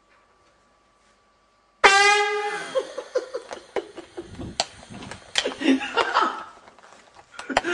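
A handheld air horn blasts suddenly about two seconds in: one loud, brassy blast. Clatter, shouting and laughter follow.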